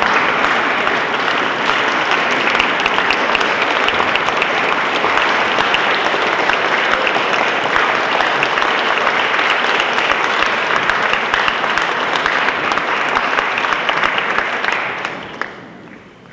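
Audience applauding steadily, a dense patter of many hands clapping, that dies away near the end with a last single clap.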